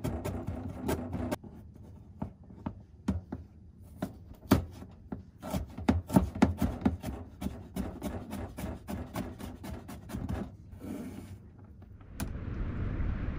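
Kitchen knife chopping and mincing herbs on a plastic cutting board: quick, irregular taps of the blade hitting the board. A short scrape comes near the end. Just before the end, a steady outdoor rush of wind and water noise takes over.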